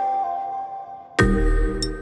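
Background music: a held note fades out, then a new phrase with a deep bass and bright plucked notes comes in just past halfway.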